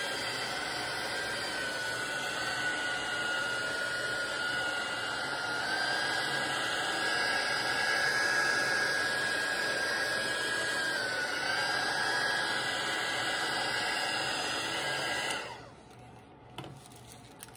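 Handheld hot-air craft dryer (heat tool) running over a glued paper page to dry it: a steady fan rush with a whine that wavers slightly in pitch, switched off about fifteen seconds in.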